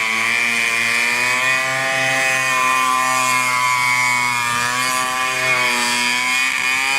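Small 135cc single-cylinder ATV engine running at steady high revs, its pitch wavering a little.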